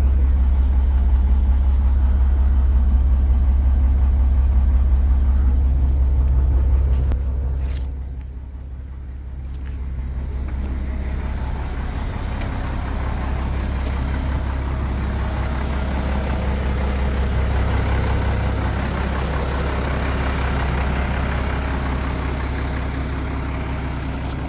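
Ford F-700's 6.6 turbo diesel engine running at idle with a steady low drone. About seven seconds in it quietens briefly, then comes back with a brighter, noisier sound.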